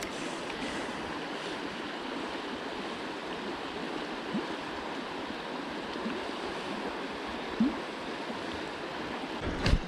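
A shallow river running over a stony riffle: a steady rush of flowing water. There is a brief sharp sound about three quarters of the way through and a click near the end.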